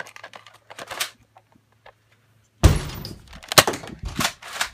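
A few faint clicks, then about halfway through a sudden burst of scuffling and handling noise followed by several sharp knocks and thuds in quick succession.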